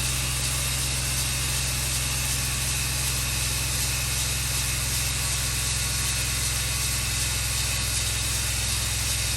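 Large band sawmill running through a cut: a steady low engine drone under an even high hiss from the band blade.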